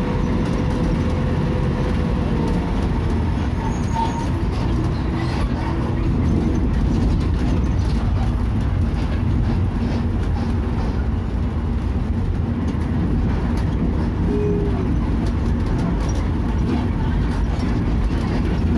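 Steady engine and road noise heard from inside a moving bus.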